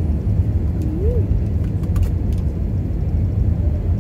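Airliner cabin noise during descent: a steady low rumble. A short rising tone comes about a second in.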